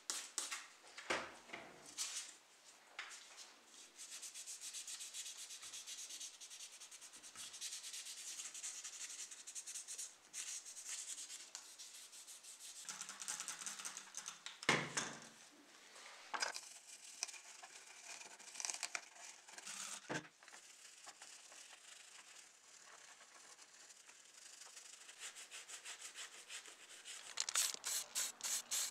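Scratchy rubbing and scrubbing strokes on small die-cast model car parts as they are cleaned of rust and paint, with a couple of sharp knocks around the middle. Near the end a fast, even run of rattling strokes begins.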